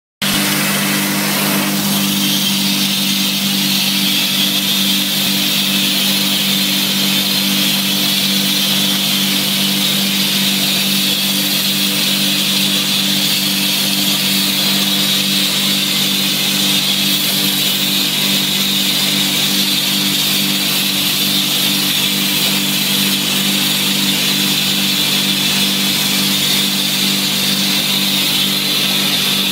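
Vacuum motor of an upholstery cleaning machine running steadily, a low hum with a high whine, as its plastic nozzle works over sofa fabric.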